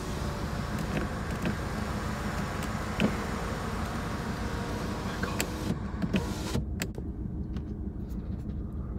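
Rear electric window of a 2018 Jaguar XF going down: the window motor whirs steadily for about six and a half seconds, then stops after a few clicks as the glass reaches the bottom.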